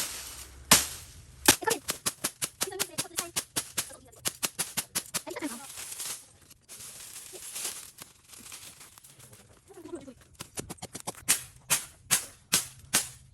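Rapid series of sharp knocks, about five a second, in two runs with a pause of several seconds between them.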